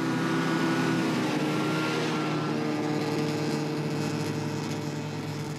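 Snowmobile engine running as the machine passes and pulls away, getting fainter toward the end.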